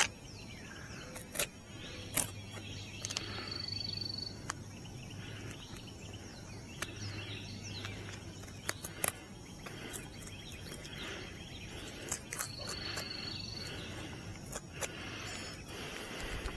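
Outdoor rural ambience with scattered sharp clicks and soft scuffing sounds. A short, high, steady call comes twice, once early and once near the end.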